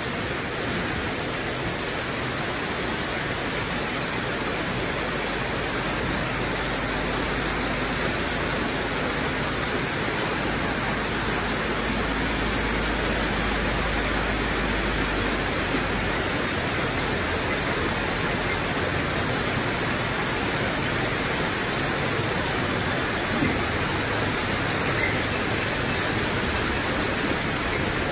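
Heavy downpour: a steady loud hiss of rain with floodwater rushing over a road. A low rumble from about twelve to sixteen seconds in comes as a vehicle drives through the water.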